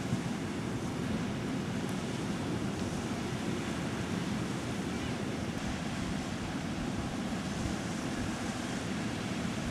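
Muddy flash-flood water rushing steadily across a road.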